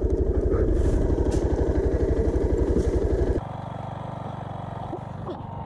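Motorcycle engine idling with an even, fast pulsing beat. About three and a half seconds in, the sound cuts abruptly to a quieter, steadier engine hum.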